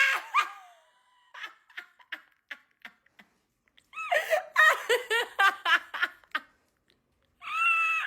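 Laughter after a pun is told: a loud cry right at the start, then soft giggles, then a quick run of ha-ha laughs about four seconds in.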